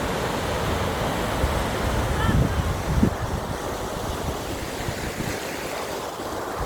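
Ocean surf breaking with wind buffeting the microphone, and a couple of louder low gusts about two to three seconds in.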